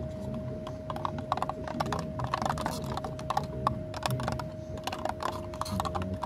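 A thin metal stirrer clicking and scraping irregularly against a small plastic cup while mixing paint, over a steady hum.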